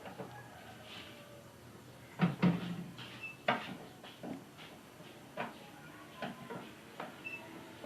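Scattered knocks and clicks of hard objects being handled and set down, with the heaviest knocks about two and three and a half seconds in.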